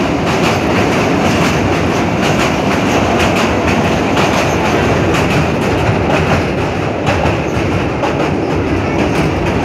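Train running along the track: a steady, loud rumble of wheels on rail with a rapid run of clicks as the wheels cross rail joints.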